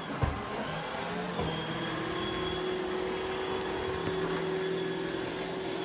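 iRobot Roomba i3 robot vacuum running with freshly fitted genuine iRobot main brushes: a steady motor and brush hum. There is a brief knock just after the start, and a steady tone joins about a second and a half in.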